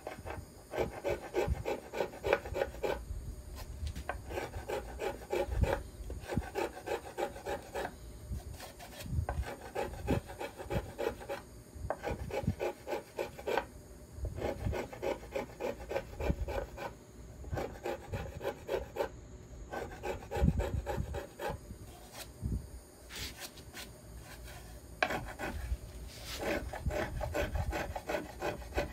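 Small hand scraper drawn in quick, short strokes over the carved wooden arch of a violin plate: a scratchy rasping that comes in runs of strokes broken by brief pauses. This is the final smoothing of the arch after planing.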